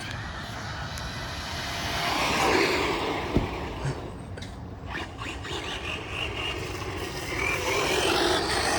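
Nitro RC car's small glow engine running, swelling and fading twice as the car goes by.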